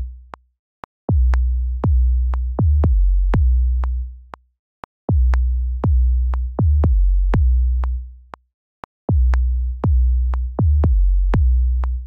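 Trap 808 bass pattern playing from a sampler: deep sub-bass notes stepping between a few pitches in a phrase that repeats about every four seconds, each note shortened by a fade-out so the notes don't run into each other. Sharp short clicks sit on the note attacks and between them.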